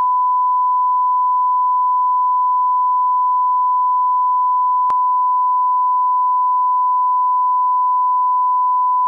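Steady 1 kHz sine test tone, the line-up reference tone at the head of a broadcast tape, with a faint click about five seconds in.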